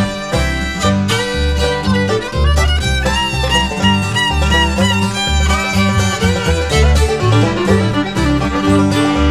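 Bluegrass music with no singing: a fiddle playing a sliding lead line over banjo and guitar, with a steady bass pulse.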